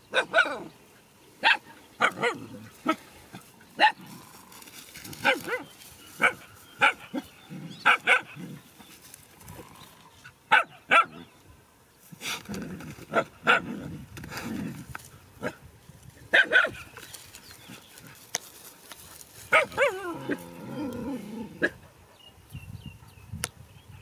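Dogs barking: a string of short, sharp barks at irregular intervals, with some lower, longer sounds mixed in about halfway through and again near the end.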